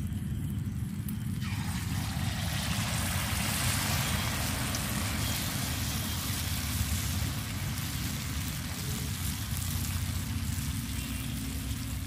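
Banana malpua batter poured from a ladle into hot oil in a steel kadai, the oil breaking into a loud steady sizzle that starts suddenly about a second and a half in, over a low steady rumble.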